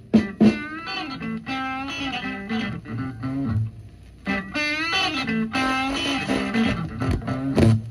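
Psychedelic rock music led by electric guitar, its notes bending in pitch, over bass and drum hits, with a couple of brief dips.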